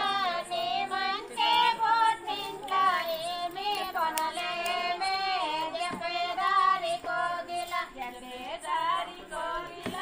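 Women singing a song in high, strong voices, with long held notes and pitch bends.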